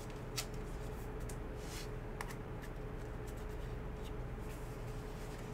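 Trading cards being handled and flipped through by hand: faint scattered clicks and rustles of card stock, over a steady low hum.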